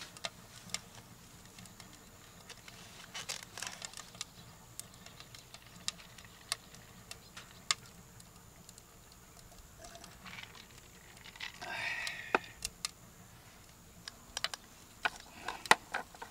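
Firewood crackling inside a Winnerwell Woodlander wood stove: irregular sharp pops and snaps, with a brief louder rustling noise about twelve seconds in.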